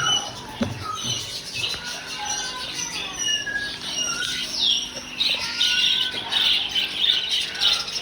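Many caged birds chirping and squawking at once, a dense chorus of short overlapping calls and pitch glides.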